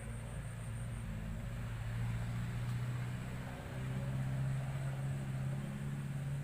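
Low, steady engine hum whose pitch shifts slightly higher about halfway through.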